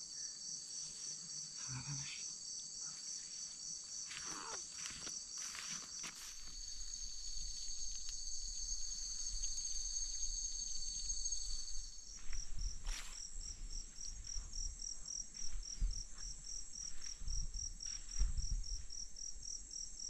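Night chorus of crickets and other insects: steady high-pitched trilling with a pulsing chirp at about four pulses a second. From about six seconds in, a low rumble of handling or wind on the microphone joins it, with a few brief rustles.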